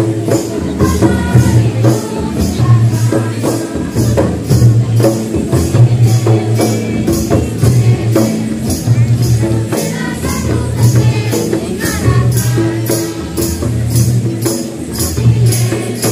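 Munda folk dance music played live: two-headed barrel drums beating a steady rhythm, a high, sharp tick about three times a second over it, and voices singing along.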